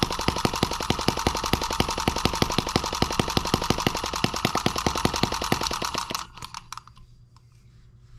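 M17B miniature single-cylinder four-stroke model engine running fast with rapid, even firing pops. About six seconds in the firing stops abruptly and the engine coasts to a stop with a few last clicks.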